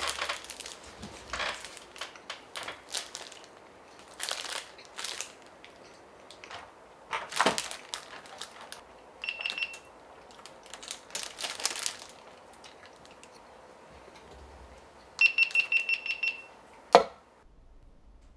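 Irregular rustling and clattering of things being handled, with two runs of rapid, high electronic beeps, a short one about halfway through and a longer one near the end, then a single sharp knock.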